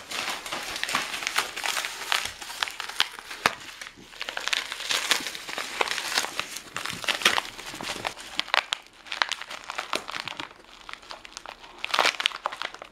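A beagle tearing open a wrapped pet-treat package: dense crinkling and ripping of the wrapping in uneven bursts.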